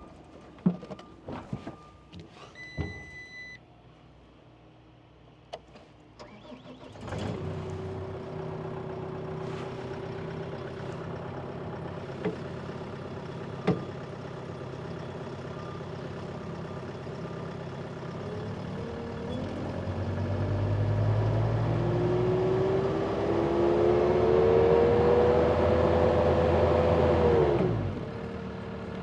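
A few clicks and a short beep from the Case skid steer's controls, then its diesel engine starts about seven seconds in and runs steadily. It is throttled up with a rising pitch from about twenty seconds, then drops back near the end. It is running again now that a loose electrical connection behind the no-crank, no-start has been tightened.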